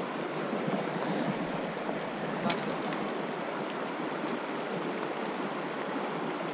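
Stream water running with a steady rush, and one sharp click about two and a half seconds in.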